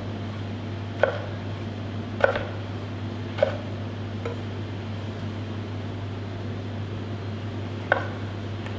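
Chef's knife slicing plum tomatoes, the blade knocking on a plastic cutting board about five times, with a gap of a few seconds before the last knock. A steady low mechanical hum runs underneath.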